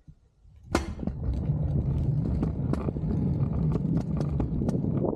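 A vehicle moving along a wet road: a steady low rumble of tyres and wind with many small irregular ticks, starting with a sharp click just under a second in.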